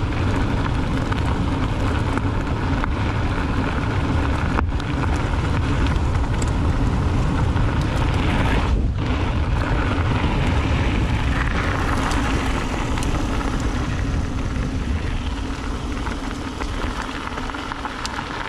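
Wind buffeting the microphone of a riding mountain bike's camera, over the steady rush of its tyres rolling on a dirt trail, with scattered small clicks and rattles.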